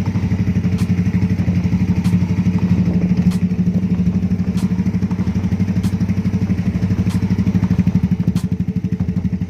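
Yamaha Mio i125 scooter's single-cylinder four-stroke engine idling steadily through a Chicken Pipe V3 aftermarket exhaust with its muffler gutted (kalkal), giving a loud, rapid, even pulsing exhaust note.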